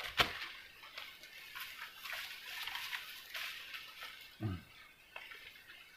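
Handling noise from a fishing rod and reel: a sharp click just after the start, then soft rustling, with a short low grunt-like sound about four and a half seconds in.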